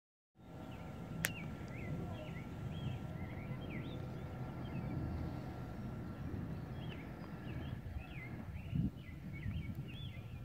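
Small birds chirping repeatedly, short rising-and-falling notes, over a steady low rumble. A single sharp click about a second in.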